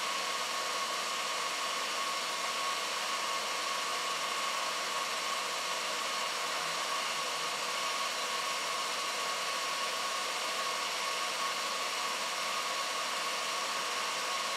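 Steady rushing hiss with a thin constant whine over it, from the engine bay of an Audi TT running hot for a combustion leak test.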